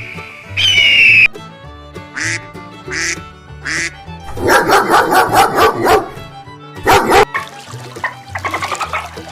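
A string of short farm-animal calls over background music with a steady bass line. A loud call comes first, then three short calls, then a fast run of about eight calls around the middle, and one more loud call later.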